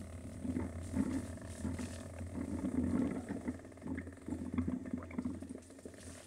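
Steady low rumble with rattles and knocks from a mounted action camera riding fast over a rough, muddy dirt track.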